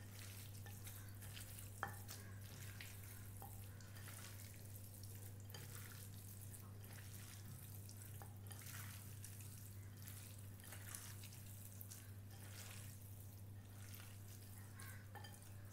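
Hands squishing and kneading chicken pieces in an oily chilli marinade in a glass bowl: faint, irregular wet squelches over a steady low hum.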